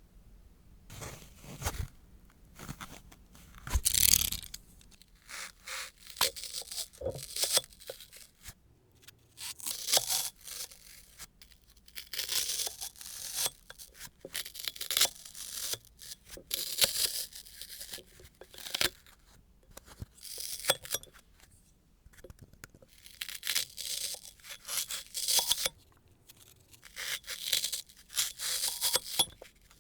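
Close-up nail-care work: repeated short, scratchy rasping strokes in bursts of a second or two, with brief pauses between.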